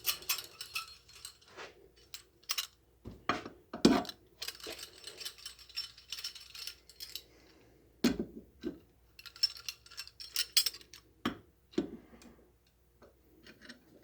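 Small metal tools and carburetor parts being handled, with irregular clinks, clicks and short jingling rattles and a few duller knocks.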